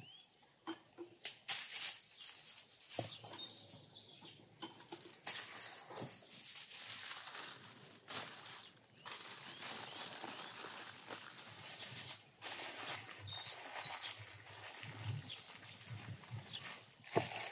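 Aluminium foil crinkling and rustling as it is folded and scrunched into a parcel by hand, with a few sharp crackles.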